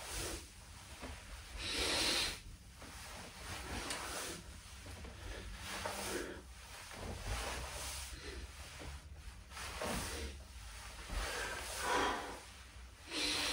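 A man breathing audibly in and out while doing slow standing knee raises, a breath about every one and a half to two seconds.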